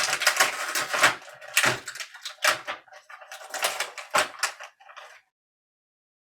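Action figure packaging being handled and opened: irregular crinkling, clicking and knocking of plastic and cardboard, which stops about five seconds in.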